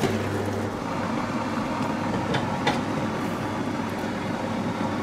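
Steady fan noise of a hot-air fryer running, with a couple of light knocks of a wooden spatula against the pan near the middle.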